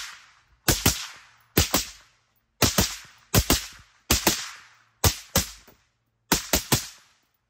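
Suppressed 11.5-inch AR-15 carbine in 5.56 fitted with a DDC Enticer S stainless steel suppressor, firing a string of shots at a steady pace, often two or three in quick succession. Each shot is a sharp crack with a short fading echo.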